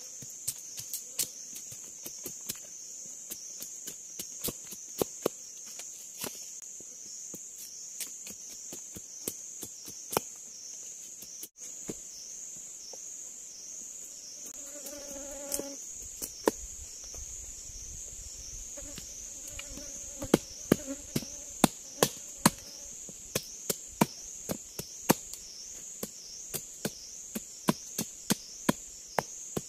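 Machete blade chopping and shaving bamboo in many quick, irregular strokes, the sharpest and loudest knocks in the second half. Under the strokes runs a steady high insect drone that pulses in a regular rhythm.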